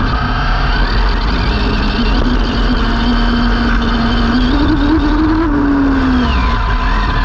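Arrma Limitless brushless electric RC speed car driving fast on wet tarmac, heard from a camera mounted on its body: a steady, loud rush of wind and tyre noise. A pitched whine holds, steps up about four to five seconds in, and falls away after about six seconds.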